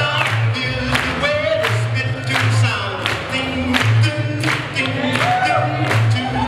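Upbeat boogie woogie dance music with singing, a steady beat and a bouncing bass line.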